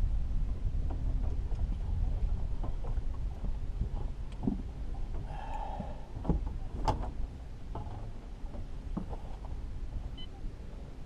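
Scattered knocks and clicks of fishing gear being handled in an aluminum fishing boat, over a low steady rumble; one sharp click about seven seconds in.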